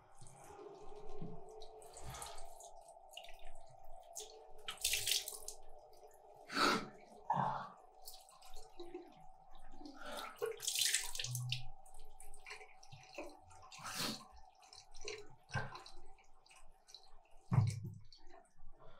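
Water splashing in a bathroom sink, with a string of separate splashes, the loudest near the end. A steady hum runs underneath and stops shortly before the end.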